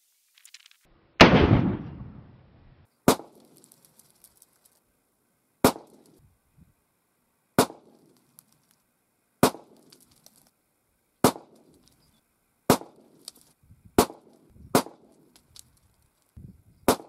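Homemade .45 ACP pistol with a machined rifled steel barrel being fired in a slow string of shots, about one every one and a half to two seconds. The first shot, about a second in, is the loudest and rings on longest; the rest are sharp, shorter cracks.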